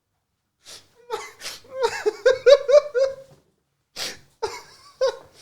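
A person's nonverbal vocal outburst: a quick run of short pitched laughing syllables starting about a second in, followed by sharp breathy bursts near the end.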